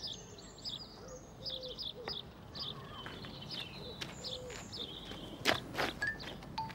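Birds chirping and twittering outdoors, many short high chirps throughout, with two sharp clicks close together about five and a half seconds in.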